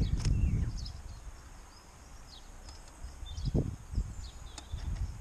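Outdoor ambience of small birds chirping in short, repeated high calls. There is a low rumble in the first second and a dull knock about three and a half seconds in.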